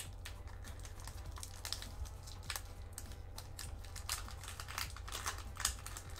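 Foil wrapper of a Pokémon card booster pack being slowly and carefully peeled open by hand: irregular small crinkles and clicks, over a low steady hum.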